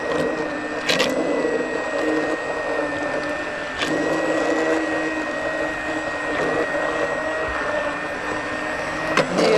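Handheld immersion blender running on high speed, pureeing cooked carrot soup in an enamel pot. Its motor hum wavers in pitch as the blade works through the soup, over a steady high whine, with a few brief sharp clicks.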